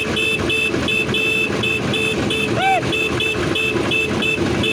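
Railway motor trolley running along the track, its engine giving a steady loud hum. A rapid high two-tone beeping repeats about three or four times a second throughout, and a short tone rises and falls about two and a half seconds in.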